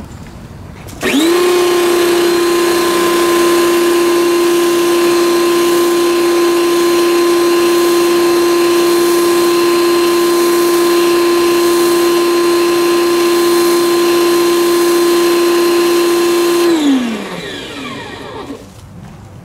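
Electric pressure washer's pump motor kicking on about a second in as the trigger is squeezed, running with a steady hum over the hiss of the water jet hitting concrete. Near the end the trigger is released and the motor winds down, its pitch falling until it stops.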